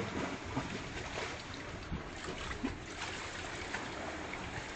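Small waves lapping and trickling against a rocky shore, a steady watery wash with scattered small splashes.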